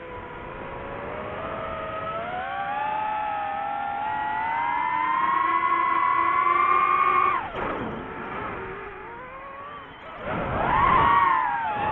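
DJI FPV quadcopter's motors and propellers whining, the pitch climbing slowly for several seconds, dropping sharply about seven and a half seconds in as the motors slow, then spinning up again near the end.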